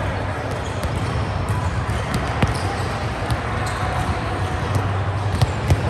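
Sports hall sounds of a volleyball game: scattered sharp thuds of the ball being hit and bouncing on the court, a few louder knocks near the end. Under them there is a steady low hum and faint distant voices.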